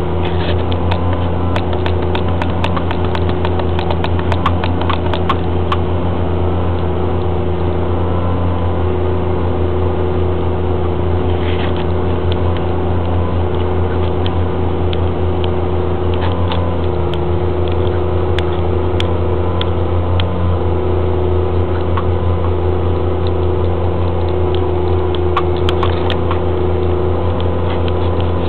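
Heavy tractor's diesel engine running at a steady pitch, heard from inside a cab, with scattered light rattles and ticks.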